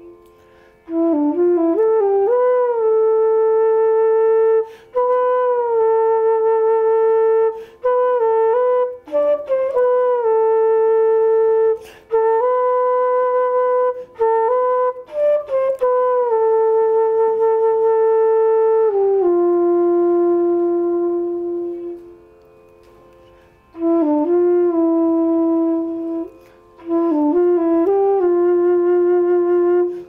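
Solo wooden transverse flute playing a slow melody: long held notes joined by quick ornamental turns, phrase by phrase, with a short pause about three-quarters of the way through.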